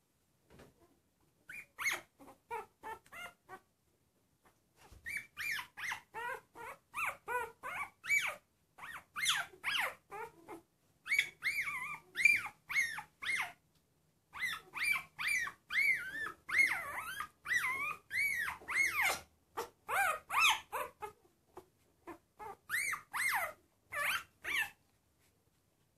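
Very young puppy squealing and whimpering in quick runs of short, high-pitched cries that rise and fall in pitch, with a few short breaks, as it protests at being held on its back and handled.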